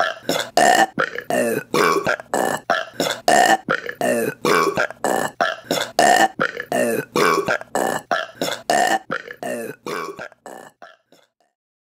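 A rapid string of short, loud burps, about three a second in an even rhythm, fading out shortly before the end.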